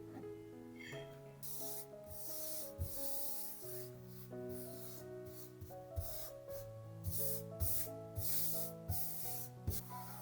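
Soft background music with sustained notes, over which comes a run of irregular rough rubbing strokes, some with a low knock.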